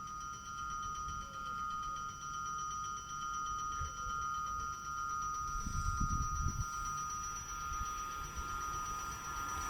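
An approaching train at a railway station: a steady high-pitched whine of a few held tones over a low rumble that swells about six seconds in.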